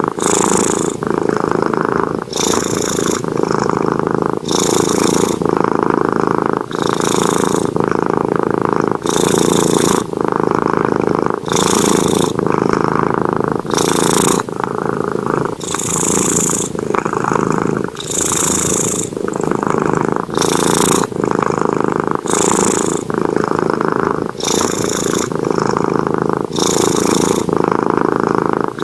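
Sleeping cat snoring: a continuous sound that swells with each breath, about one breath every two seconds.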